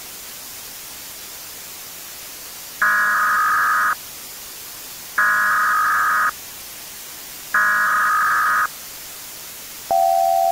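Emergency-alert broadcast tones over steady static hiss: three bursts of shrill data tones, each about a second long with a second's gap between them, then a long, steady alert tone that begins near the end.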